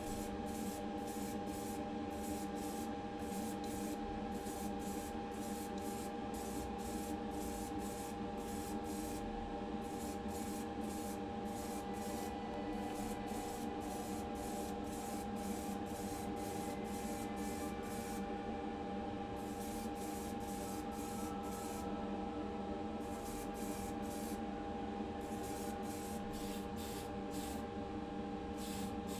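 Aerosol spray can hissing out paint in short repeated bursts, with a few longer pauses, over the steady hum of a spray booth's extractor fan.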